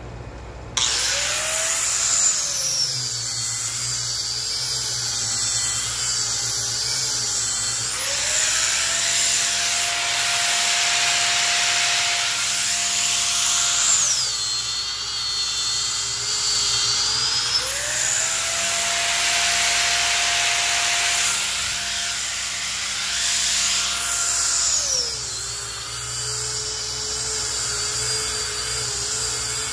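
Electric angle grinder with a sanding disc, switched on under a second in, sanding a pine tabletop. Its whine drops in pitch while the disc is pressed into the wood and climbs back to full speed when it is eased off, twice over.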